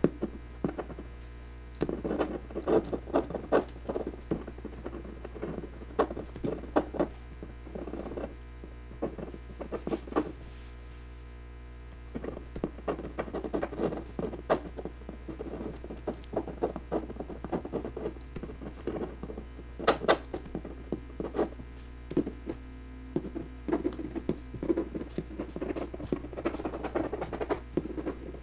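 Fountain pen nib scratching and tapping on heavy Bristol paper in quick, short strokes, with a break of about two seconds a little over a third of the way in. A steady low hum sits underneath.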